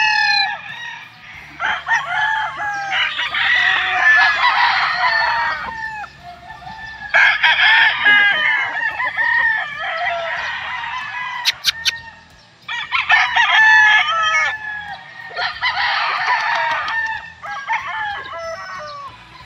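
Several gamefowl roosters crowing across the yard, their crows overlapping in repeated bouts. Three quick clicks come about twelve seconds in.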